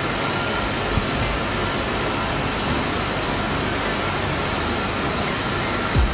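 Small WLtoys V929 toy quadcopter's motors and propellers whirring at a steady pitch in flight, a continuous whirr with a faint high whine.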